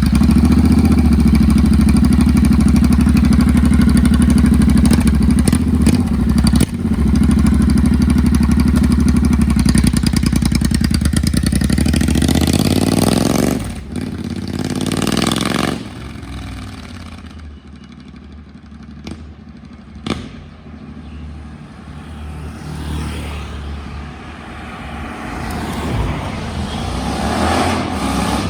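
Royal Enfield Interceptor 650 parallel-twin engine running through aftermarket Dustland Moto slip-on exhausts: a loud, steady exhaust note for about the first thirteen seconds, then a short rev. After that the sound drops off and varies, growing louder again near the end.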